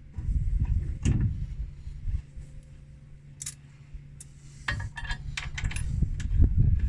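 Bolts and hardware being handled and started by hand into a steel mounting bracket on a combine: a low rumble in the first second, then a quick run of light metallic clicks and clinks near the end.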